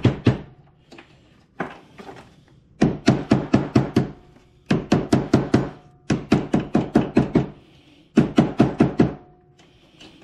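A hammer beating a hand-woven splice in a steel aircraft control cable against a wooden workbench to pound out the kinks. The blows come in quick runs of about six to eight a second, with short pauses between the runs.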